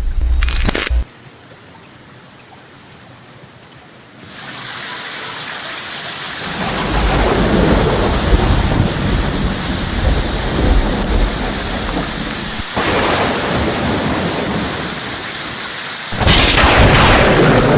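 Heavy rain with rolling thunder. It starts quiet, the rain hiss builds after a few seconds and deep rumbling rises around it, then a sudden louder surge comes near the end.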